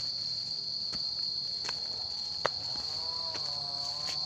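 A steady, high-pitched drone of insects (crickets or cicadas) in the forest, with a few sharp footsteps on the stony path. About three seconds in, a long, wavering call joins in and carries on.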